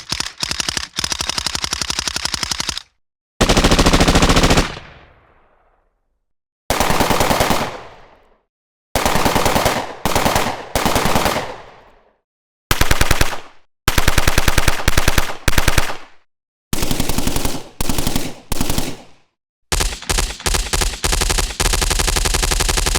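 Machine-gun sound effects: a string of separate automatic-fire bursts of rapid shots, some short and some held for a couple of seconds, several ending in an echoing tail.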